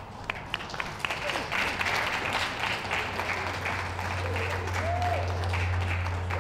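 Audience applauding: a few separate claps that build within a second or two into steady applause. A low steady hum joins about halfway through.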